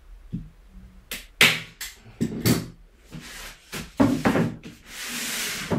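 A hand staple gun driving a staple through stretched canvas into the wooden stretcher bar with one sharp clack about a second and a half in, among smaller knocks of the frame being handled. Near the end the canvas-covered frame is turned on the floorboards with a scraping, rustling sweep.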